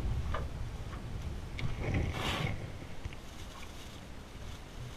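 Wind noise on the microphone, with a few light clicks and a short rush of noise about two seconds in.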